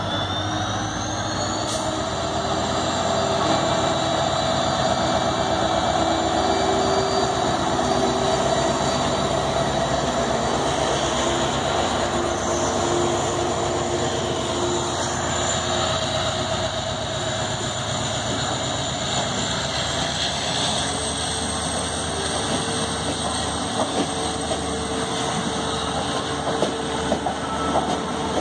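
WDP4D diesel locomotive, with its EMD 16-cylinder two-stroke engine, accelerating hard as it pulls a passenger train away. Its high whine rises in pitch about a second in and again about two-thirds through. Coaches then roll past, their wheels clicking over rail joints near the end.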